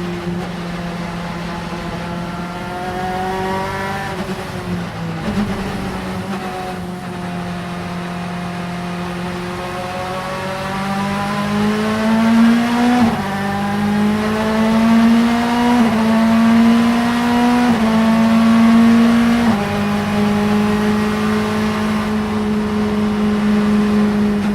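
Vauxhall Vectra Super Touring race car's two-litre four-cylinder engine running hard on track. The pitch falls off briefly about five seconds in, then climbs through the revs and drops sharply at each of several quick upshifts in the second half.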